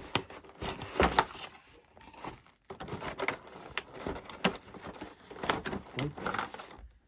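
Packaging of a baseball card box being handled and opened: irregular crinkling, tearing and rustling with scattered clicks, the loudest about a second in.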